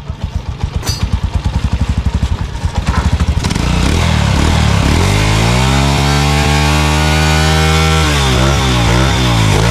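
Honda TMX 155's single-cylinder four-stroke engine through an open stainless chicken-pipe exhaust: idling with distinct exhaust pops, then revved up and held high for about two seconds, then a run of quick throttle blips near the end.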